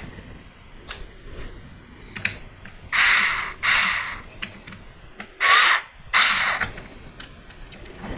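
Cordless screwdriver run in four short bursts, in two pairs, driving screws into a CNC router's Z-axis assembly.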